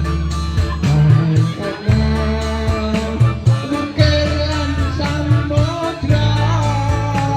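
Band music with a steady bass line and beat, and a lead melody of held, wavering notes that comes in about halfway through.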